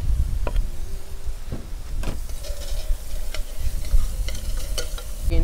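A large metal spoon scraping and stirring diced onion and sweet pepper in hot oil in a stainless steel pot, with repeated clinks and short rings of metal on metal and a light sizzle, over a low rumble.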